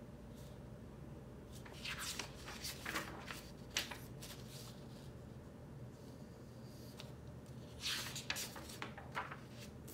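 Sheets of paper flash cards rustling and sliding as they are handled and swapped, a few short faint rustles about two to four seconds in and again near the end, over quiet room tone.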